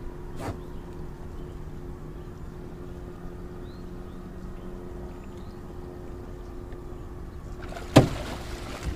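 A big catfish splashing as it is released back into the river near the end, the loudest sound, over a steady low mechanical hum. A faint click comes about half a second in, and faint bird chirps sound now and then.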